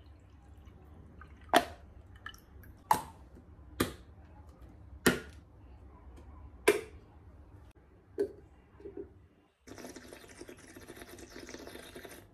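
Sharp clicks and taps of a plastic lid and straw being fitted onto a glass of juice, about six distinct ones spread over eight seconds, over a faint low hum. Near the end comes a soft steady hiss of sipping through the straw.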